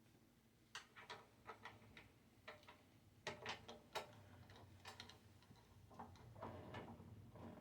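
Faint, irregular clicks and taps of hard parts being handled: the heater's carry handle and its mounting screws being fitted and turned over by hand.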